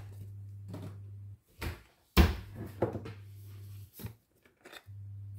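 Several sharp knocks and taps of kitchen utensils and containers on a countertop, the loudest about two seconds in, over a low steady hum.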